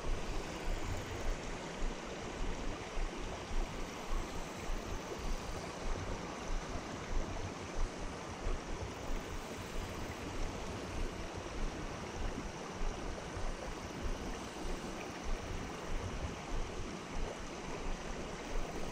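Steady outdoor rushing noise with uneven low buffeting, wind blowing across the camera microphone.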